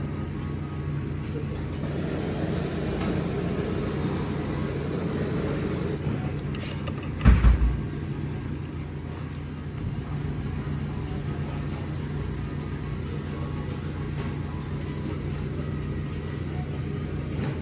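Steady low hum of restaurant room noise with faint background voices. About seven seconds in comes a single loud, low thump.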